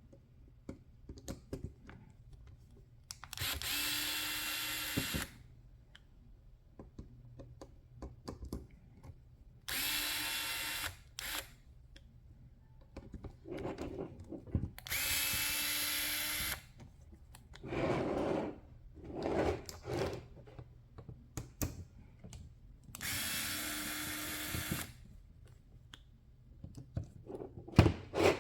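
Small electric screwdriver whirring in four short runs of one and a half to two seconds each, backing screws out of a plastic housing. Clicks and rattles of parts being handled come between the runs.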